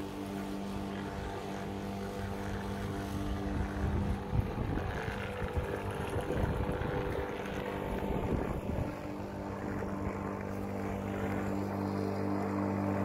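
Corded electric lawn mower running with a steady motor hum. From about four to nine seconds in it turns rougher and louder, then settles back to the steady hum.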